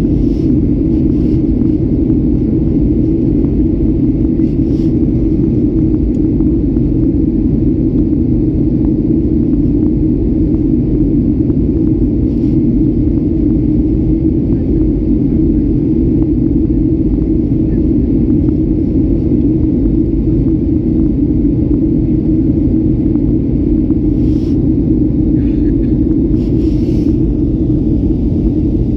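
Steady, loud cabin noise of a Boeing 737-800 in flight: the low rumble of its CFM56 engines and the rush of air over the fuselage, heard from a window seat. A few faint, brief sounds come through near the end.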